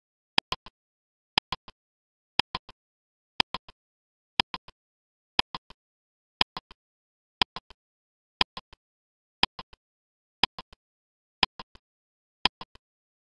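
Countdown-timer clock ticking sound effect, one tick a second, thirteen in all. Each tick is a sharp click followed closely by two softer clicks.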